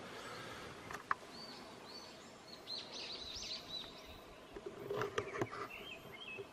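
Quiet outdoor ambience with a small bird giving quick series of short, arching chirps, and a few soft clicks.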